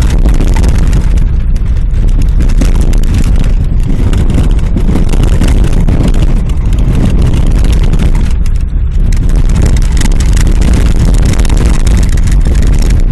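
Volvo V40 T4 driving over snow-covered lake ice, heard from inside the cabin: a loud, steady rumble of engine and tyres on snow.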